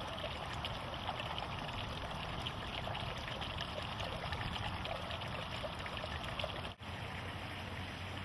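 Steady trickling, babbling noise like running water, broken by a momentary dropout just under seven seconds in.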